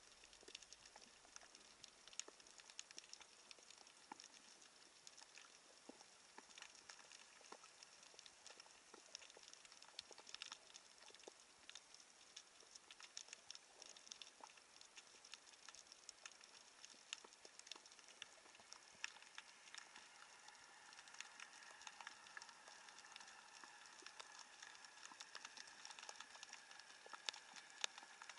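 Faint underwater crackle: a dense, irregular spatter of tiny clicks picked up by an action camera in its housing below the surface. A faint steady tone joins in about two-thirds of the way through.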